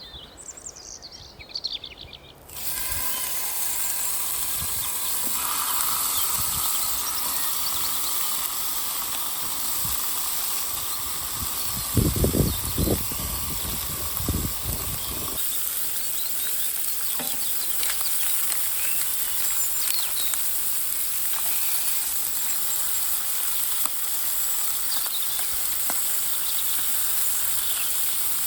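A few bird chirps, then a steady loud hiss starts abruptly about two and a half seconds in and runs on. A few low thumps come around twelve seconds in.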